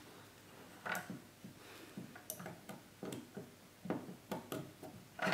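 Light clicks and knocks of 3D-printed plastic parts and metal rods being handled and pressed together, scattered taps every half second or so.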